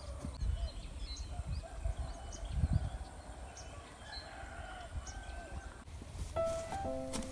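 Birds calling outdoors: many short high chirps and a few longer wavering calls, with wind rumbling on the microphone. Soft music notes come in near the end.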